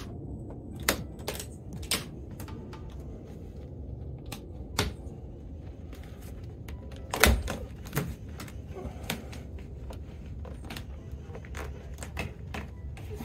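In-channel window deflector being flexed and pressed into a car door's window channel: scattered clicks and knocks of the deflector against the door frame, the loudest about seven seconds in, over a low steady hum.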